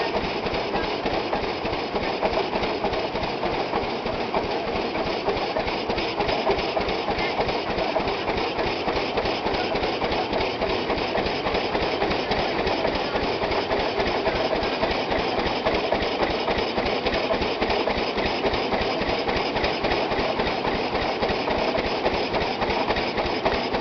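Belt-driven threshing machine running with a fast, even clatter as bundles of grain are fed into it.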